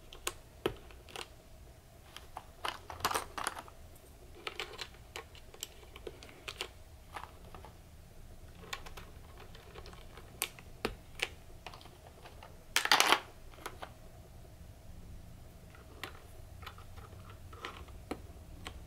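Keycaps being pushed one at a time onto the red-stemmed switches of a mechanical keyboard: irregular plastic clicks and taps as each cap seats and the switch is pressed down. There is a louder cluster of clicks about 13 seconds in.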